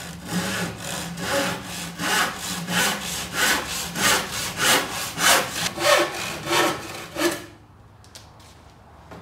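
Handsaw crosscutting a spruce board, a steady rhythm of push-and-pull strokes at about two a second. The sawing stops about two seconds before the end as the offcut comes free, followed by a few faint knocks of wood being handled.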